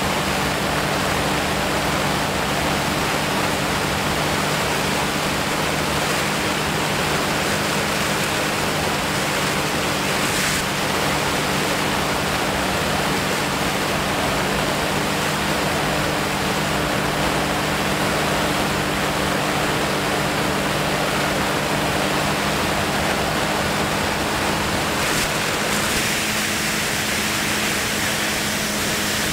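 Steady wind rushing over the camera's microphone in flight, with a constant low hum underneath.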